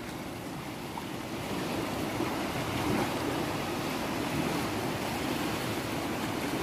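Sea waves washing on the shore, a steady rushing noise with wind on the microphone.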